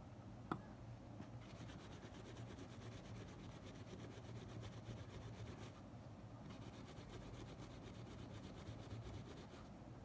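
Faint rubbing and scratching of a cotton swab and tissue scrubbing grime off the open tape mechanism of a Sony Walkman WM-EX85 cassette player, with one small click about half a second in.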